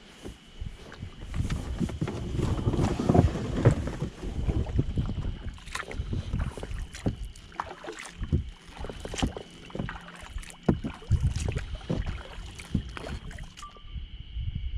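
Kayak being paddled on a lake: paddle blades dipping and splashing in the water, with irregular knocks and clicks.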